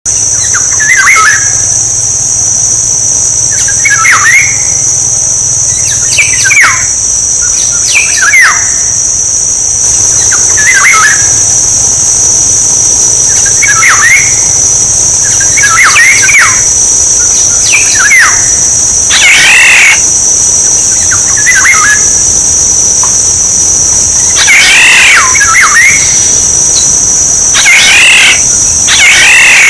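Oriole calls: short whistled phrases repeating about every two seconds, with a few harsher, louder calls in the second half. Two steady high-pitched tones run underneath throughout.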